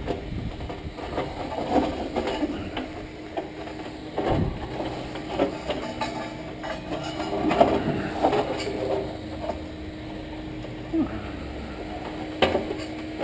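A steady mechanical hum, like an idling vehicle engine, under intermittent knocks, clanks and scrapes of metal water-heater parts being handled.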